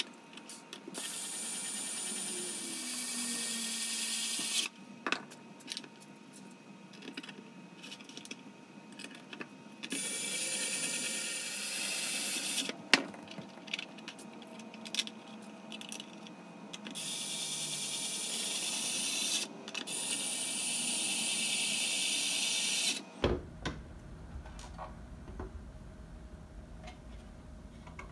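Cordless electric screwdriver driving M3 socket head screws into 3D-printed PLA planks, in four runs of a few seconds each, with clicks and knocks of screws and plastic parts being handled between them.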